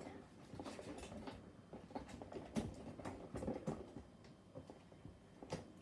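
Faint, scattered clicks and taps of a coffee machine's box and packaging being handled as it is opened.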